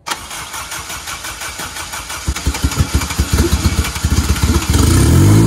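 Acura RSX Type S's 2.0-litre four-cylinder engine cranked on the starter for the race car's first start. It sputters and fires unevenly for a couple of seconds, then catches about four and a half seconds in and runs, its revs rising and settling.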